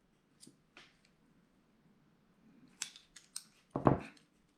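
Small metallic clicks of a folding knife's parts and small tools being handled while working at a stuck pivot, with a louder knock near the end.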